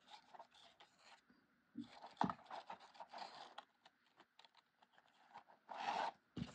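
Faint rustling and scraping of cardstock paper flowers being handled and pressed into place, with small ticks and a couple of soft taps on the table.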